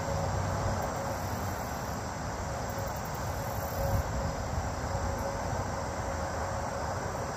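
Steady outdoor field ambience: an even hiss of insects with a low, uneven rumble underneath.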